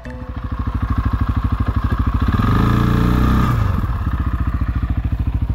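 ATV engine running with an even throbbing beat, revving up about two and a half seconds in and dropping back to a lower speed a second or so later.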